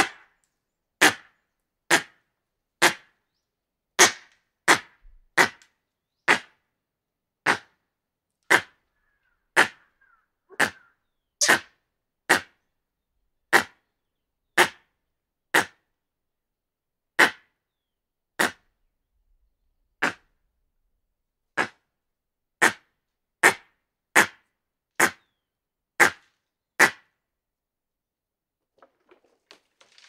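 Hanuman langur giving a long series of short, sharp alarm barks, roughly one a second, which stop a few seconds before the end.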